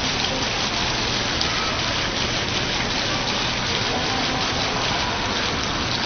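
Steady, rain-like splashing of water falling from a computer-controlled waterfall display into the basin below.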